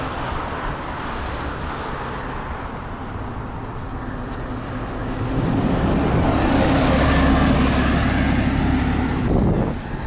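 Road traffic noise, then a city bus passes close by. Its engine grows louder about halfway through, runs with a steady low drone, and drops away near the end.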